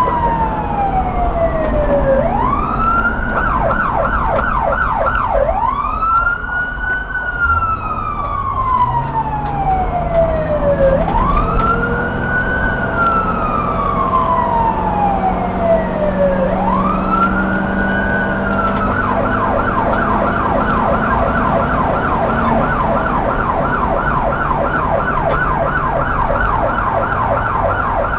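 Police car siren in a slow rising-and-falling wail, switching twice to a fast yelp of about three sweeps a second, the second yelp lasting through the end. Engine and road rumble run underneath.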